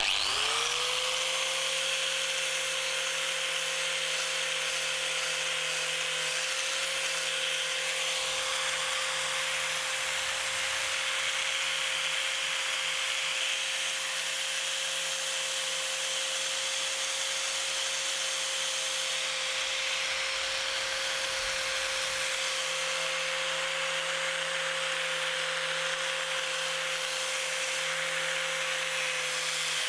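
Electric buffing wheel running steadily with a steady whine, coming up to speed right at the start, as a bronze boat fitting is held against it and polished, with a steady rubbing hiss.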